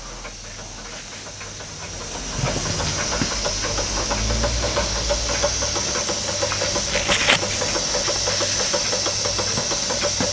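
Jensen Model 70 electrically heated model steam engine running slowly under steam: a quick, even ticking of the little cylinder and flywheel over a steady hiss of steam, part of it leaking from the top of the sight glass, whose bolt holes are worn. It gets louder about two seconds in, with one brief sharper sound about seven seconds in.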